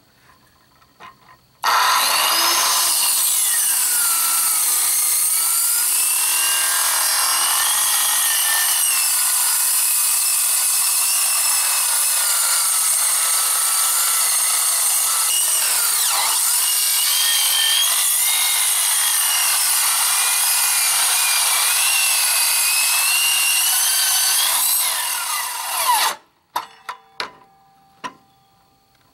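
Corded circular saw cutting through the thin sheet-metal top of a boat fuel tank. The saw starts about two seconds in and runs steadily for over twenty seconds, its pitch wavering as the blade bites into the metal, then stops suddenly. A few short knocks follow near the end.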